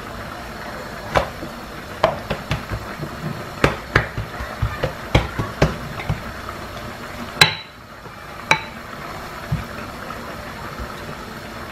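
Wooden rolling pin rolling out bread dough on a hard floured countertop, with irregular sharp knocks and taps as the pin is set down, pushed and lifted against the counter; one louder knock about seven seconds in.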